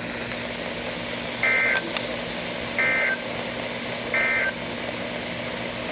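NOAA Weather Radio EAS end-of-message signal: three short bursts of SAME data tones, the NNNN end-of-message code, about a second and a half apart, over steady radio hiss. It marks the end of the severe thunderstorm warning broadcast.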